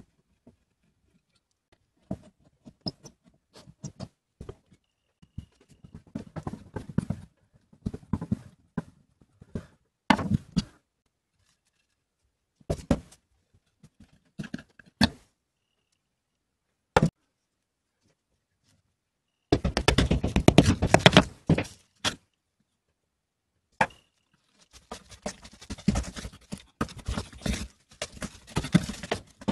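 Handling sounds from dismantling an old wooden plow plane and its rusted iron fittings: scattered clicks and knocks of metal and wood with pauses between them. There is a dense stretch of rapid rattling and scraping about two-thirds of the way through, and another in the last few seconds.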